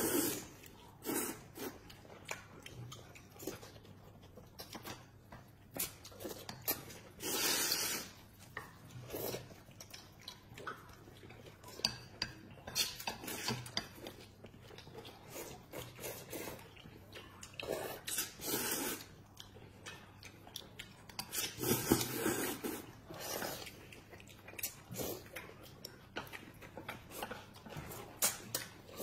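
Noodles being slurped and chewed, with chopsticks clicking against plates. Several long slurps stand out, the loudest about a third of the way in, again past halfway and just after.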